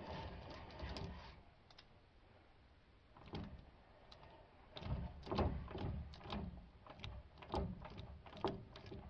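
Irregular metallic clunks and knocks with some scraping as the failed, metal-packed differential gears of a 1995 Ford Ranger's 7.5-inch rear axle are handled. The clunks start about three seconds in and come about twice a second from about five seconds in.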